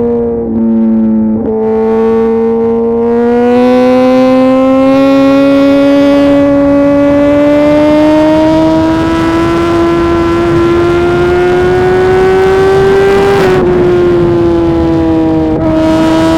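Suzuki GSX-R 1000 R inline-four through a full titanium SC-Project exhaust, pulling hard under load. The pitch steps briefly about a second in, then climbs slowly and steadily for about twelve seconds before dropping about thirteen seconds in.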